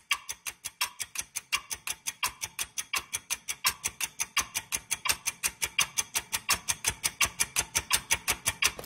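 Ticking-clock sound effect: fast, even ticks with a brighter accented tick about twice a second, slowly growing louder.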